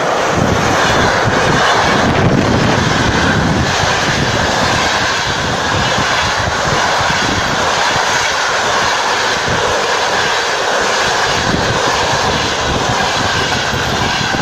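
Passenger train passing close at speed behind a ChS7 electric locomotive: a loud, steady rush and rumble of the locomotive and then a long run of passenger coaches going by on the rails.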